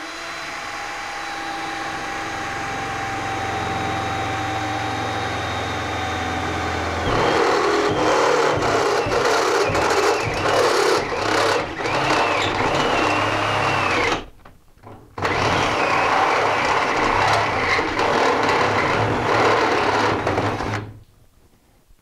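Cordless drill driving a half-inch step bit (Unibit) through the sheet-steel side of an electrical panel. The drill first runs with a steady whine; about a third of the way in the bit starts cutting into the steel with a much louder, rough, chattering grind, breaks off for about a second around two-thirds through, then resumes and stops shortly before the end as the hole goes through, throwing out hot metal shavings.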